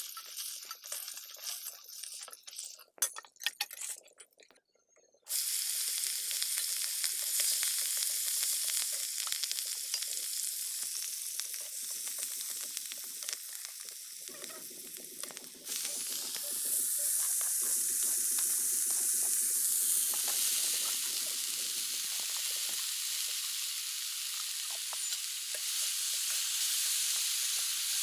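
Hot oil sizzling in a kadai as fish rubbed with salt and turmeric fry. For the first few seconds the sound is broken and quieter; after about five seconds a loud, even sizzle sets in and holds.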